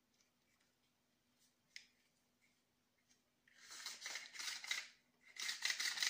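Cord of a model nitro engine's recoil pull starter being drawn out, giving a rapid rasping ratchet of fine clicks twice, starting about three and a half seconds in and again about a second and a half later.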